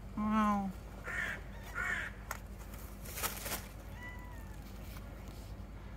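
A man says "wow", then a crow caws twice in short harsh calls, about one and two seconds in. A brief hiss of noise follows a little past three seconds, and a faint thin whistling tone comes near four seconds.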